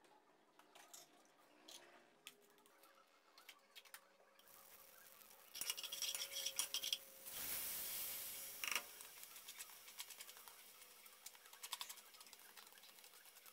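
Faint kitchen sounds at a gas stove: a hiss from a small pot that starts about four seconds in and is louder for a few seconds in the middle. Small clicks and rattles come from the pot and the plastic bowl as rinsed rice is tipped into the pot near the end.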